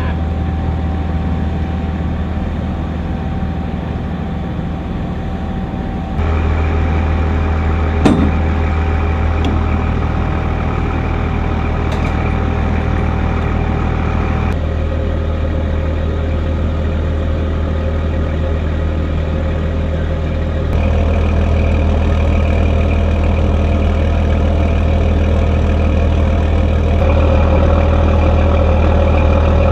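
Stryker Mobile Gun System eight-wheeled armored vehicles' diesel engines idling steadily, the engine note shifting abruptly several times. A single sharp knock about eight seconds in.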